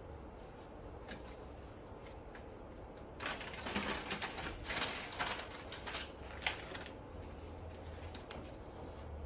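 Scattered clicking and scraping of a hand tool working at a Samsung Galaxy S23's glued back panel, densest from about three to seven seconds in, over a faint low hum.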